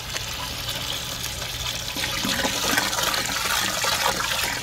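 Water from a garden hose pouring into a large aluminium crawfish-boil pot with a perforated basket insert, splashing onto the water already in the bottom. A steady rush that grows a little louder about two seconds in.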